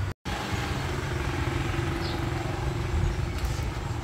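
An engine running steadily: a low rumble with a steady hum that stops shortly before the end.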